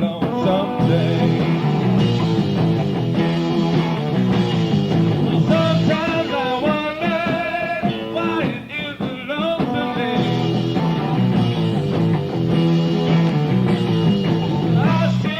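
A rock band playing live, led by electric guitar over a steady bass, on a muffled, lo-fi recording.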